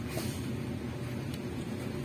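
Steady low mechanical hum or rumble with a few faint clicks.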